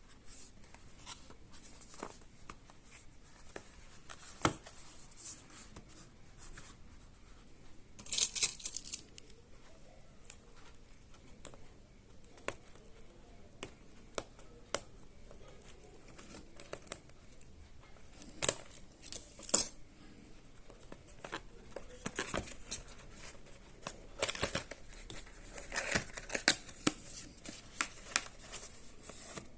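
Packaging of a Logitech M220 mouse being handled and opened: scattered taps and knocks, a short burst of tearing or crinkling about eight seconds in, and more rustling and clicks near the end.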